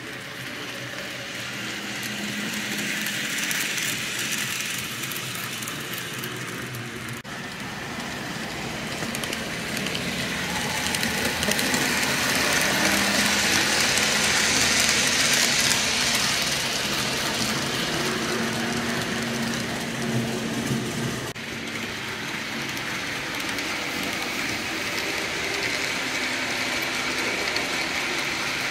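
Model trains running on the layout's track: a steady rolling rattle of small wheels on rails with a faint motor hum. It grows loudest in the middle as a diesel locomotive and coal hoppers pass close, and the sound changes abruptly twice.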